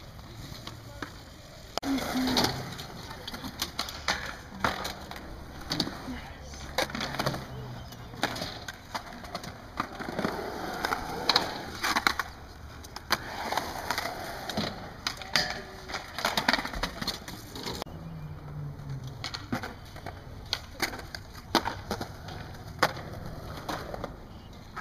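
Skateboard rolling over concrete ramps, its wheels making a continuous rolling noise, with many sharp clacks as the board and trucks knock against the concrete.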